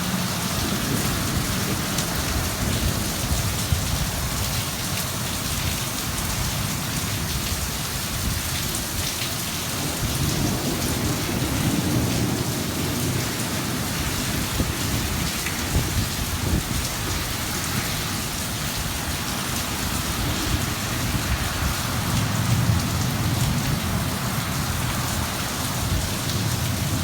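Heavy rain falling steadily in a thunderstorm, with low thunder rumbling that swells about ten seconds in and again near the end.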